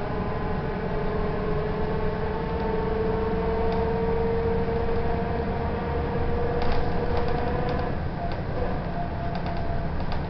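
Volvo B10M Mark IV bus running under way, heard from inside the cabin: a steady engine and drivetrain drone with a whine that climbs slowly as the bus moves, then stops about eight seconds in. A few light rattles come over the later part.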